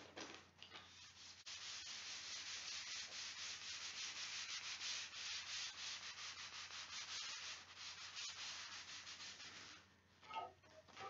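A tissue rubbed briskly by hand over glued paper on a book cover board, pressing the paper flat onto the board: a faint, even scrubbing of rapid strokes that starts about a second and a half in and stops shortly before the end.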